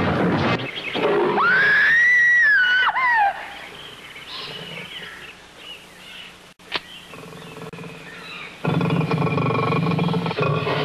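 Jungle animal sound effects. The music cuts off about half a second in, then a shrill animal call rises and falls for about two seconds. After that comes a quiet jungle background with faint calls, a single sharp click, and a loud, low animal call beginning near the end.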